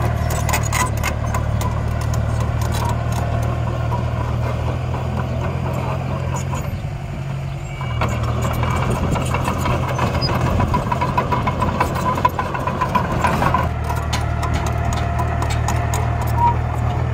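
Diesel engine of a piece of earthmoving machinery running steadily, with scattered sharp clanks. A higher whine comes in about eight seconds in and stops about five seconds later.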